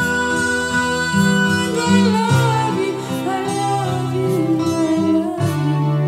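Acoustic guitar playing slow, sustained chords under a woman's singing voice, which holds a long wavering note through the middle.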